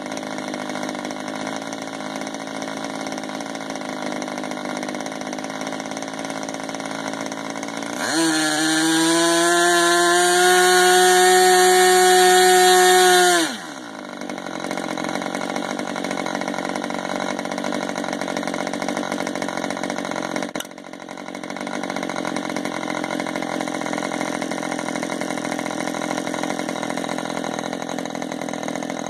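K&B 61 two-stroke glow model airplane engine with a Perry carburetor running on a test stand. It runs at low speed, jumps to a loud, high-pitched full-speed run about 8 seconds in, holds it for about five seconds, then drops back to low speed. There is a brief dip in the sound about 21 seconds in; it moves between low and high speed with its new main needle valve.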